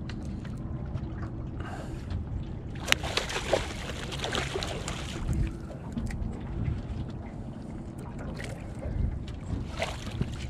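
Wind rumbling on the microphone aboard a small boat, with a sharp knock about three seconds in followed by a couple of seconds of noisy rustle.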